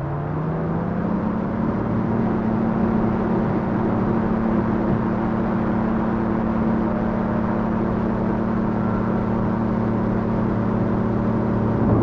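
Light aircraft's Rotax flat-four engine and propeller coming up to takeoff power, rising in pitch over the first second or so and then running steady at full throttle.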